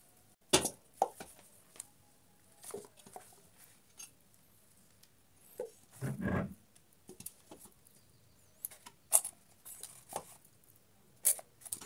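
Bamboo tubes being stood one by one in a stainless steel pot: scattered light knocks and taps of bamboo against the steel, with one duller, heavier thud about six seconds in.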